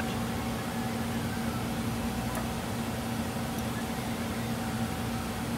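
Steady machine hum, a constant drone over a noisy whir, from the water chiller and fans running with a K40 CO2 laser engraver; one faint click about two seconds in.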